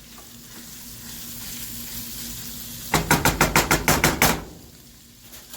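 Spicy Italian sausage with onion and garlic sizzling in a frying pan, broken about three seconds in by just over a second of rapid clattering, around ten quick strokes of a utensil stirring against the pan, before the sizzle goes on more quietly.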